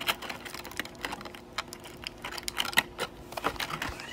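Clear plastic packaging insert clicking and crackling as a diecast model car and its accessory bag are pressed back into it: a run of irregular light clicks.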